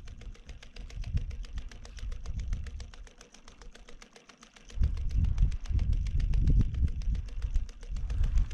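Wind buffeting the microphone: a low rumble that comes and goes, gusting up strongly about five seconds in, with a faint steady ticking of about seven clicks a second throughout.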